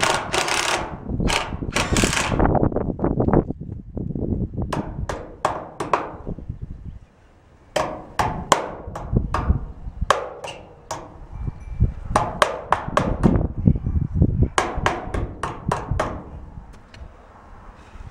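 Hammer blows on the bent sheet-steel corner panel of a portable office container, knocking the dent back to close a gap in the wall. The strikes come in quick runs of several, with a short pause about seven seconds in. It opens with a few short bursts of a cordless impact driver at the same panel.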